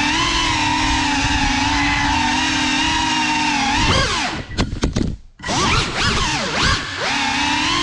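FPV quadcopter's brushless motors and propellers whining steadily in flight. About four seconds in the pitch rises, then the sound cuts out and stutters almost to nothing for about a second, and the motors spool back up in quick rising and falling swoops before settling into a steady whine again.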